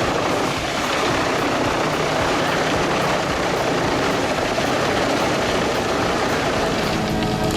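Heavy machinery running steadily under load, a dense rushing noise; near the end a steady engine hum comes through.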